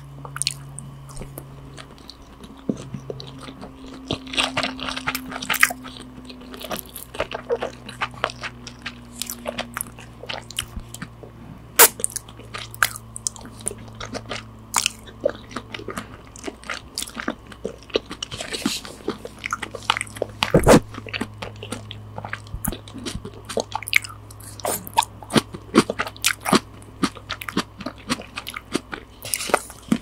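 Close-miked binaural chewing of sushi rice with raw salmon and fish roe: soft wet chewing with many sharp mouth clicks, one louder click about twelve seconds in.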